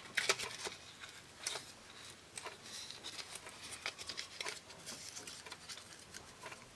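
Light scratching, rustling and small clicks of a small cardboard box being pried out of its tight-fitting paper packaging by hand.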